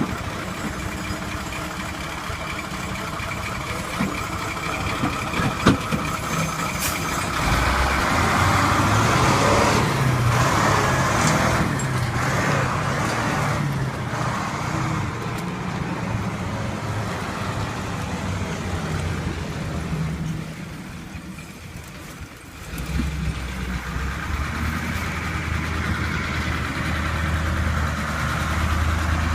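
Large truck engine running, growing louder and heavier about eight seconds in, easing back, dropping away briefly about twenty seconds in, then picking up again and running steadily.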